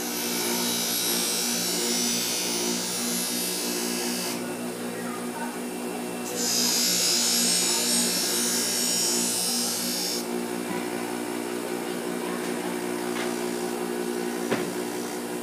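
Bench grinder motor running with a steady hum while a machete blade is pressed against the spinning wheel in two passes of about four seconds each, each pass a loud, high grinding hiss; a light click near the end.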